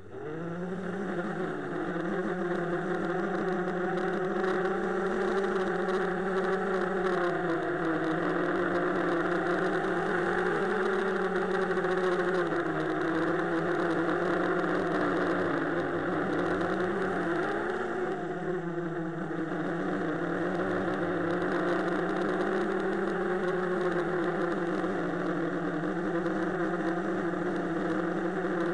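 ZMR250 quadcopter's four brushless motors and propellers buzzing, picked up by the camera on board; they spin up at the start, and the pitch then rises and falls with the throttle in flight, dipping about eighteen seconds in.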